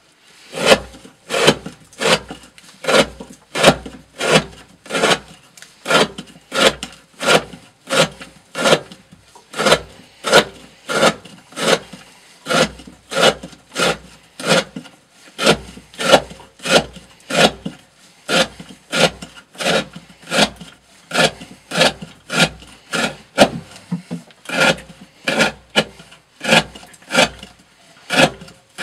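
A steel knife blade shaving curls off a softwood board, one scraping stroke after another in a steady rhythm of a little under two strokes a second.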